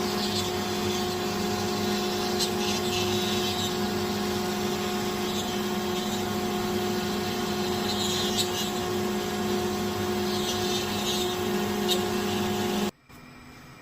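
CNC router milling wood: a steady machine sound of several held tones over cutting noise, which cuts off suddenly near the end.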